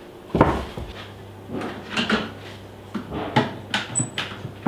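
Wooden knocks and bumps from a heavy oak beam being handled and offered up against a wall, a handful of short sharp knocks spread through, the first the loudest.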